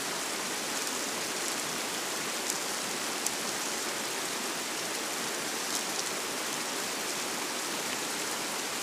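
River water rushing over stones: a steady, even rush of flowing water.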